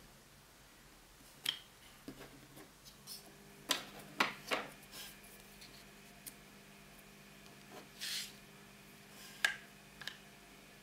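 Light clicks and taps of hard plastic craft tools, a stamp positioning tool and a clear acrylic stamp block, being handled and set down on a tabletop. There is a short rustle about eight seconds in.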